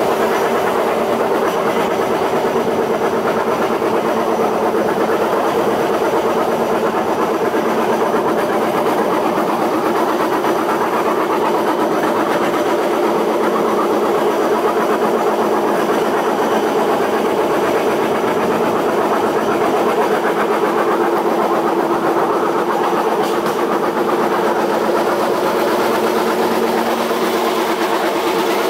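Small engine of a motorized rail trolley running steadily as the cart rolls along the track, a constant engine hum over the noise of the wheels on the rails.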